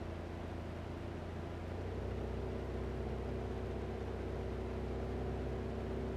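Single-engine light aircraft's piston engine and propeller heard from inside the cockpit, a steady drone. About two seconds in, the pitch steps up slightly and it grows a little louder as the power changes.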